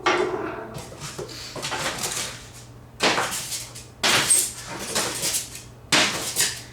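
Packing material rustling and crinkling as it is pulled out of the grill, in four loud bursts: at the start and about three, four and six seconds in.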